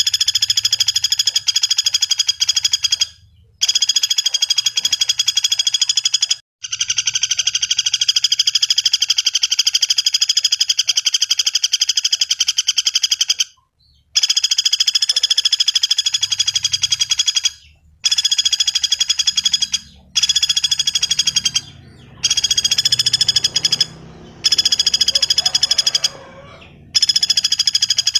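Common flameback woodpecker (pelatuk bawang) calling in long, very rapid rattling trills of a few seconds each, repeated with short breaks between them.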